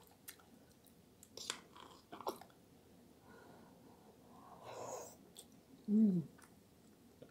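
Eating eggplant parmigiana: a few sharp clicks of a fork and knife in a glass baking dish as a piece is cut, then a bite taken and chewed with wet mouth sounds. About six seconds in comes a short closed-mouth 'mmm' that falls in pitch, the loudest sound.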